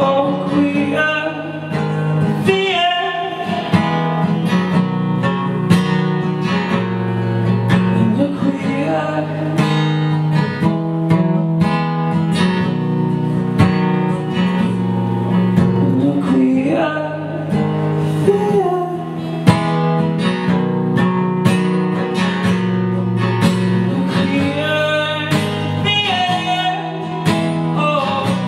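Acoustic guitar strummed steadily, with a man's voice singing a melody over it.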